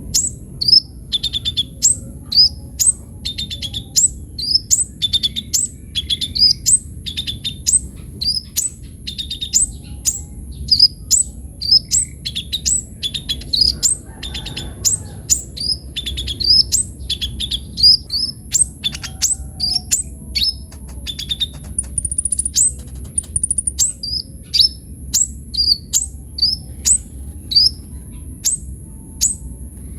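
Kolibri ninja sunbird singing energetically in a fast, unbroken string of sharp, high chirps, about two a second, each a quick falling sweep.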